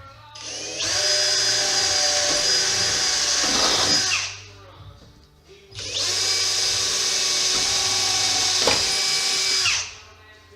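Electric drill boring rivet holes through a car's sheet-metal body panel, run twice for about three and a half seconds each with a pause between. Each run is a steady high whine that drops in pitch as the drill stops.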